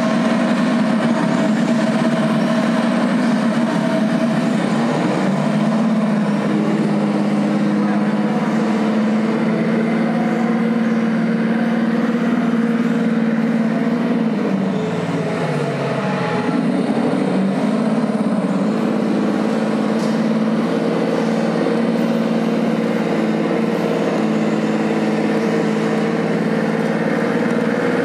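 Traxxas TRX-4 RC crawler's electric motor and geared drivetrain whining steadily as it crawls, the pitch dropping briefly about halfway through and then picking up again.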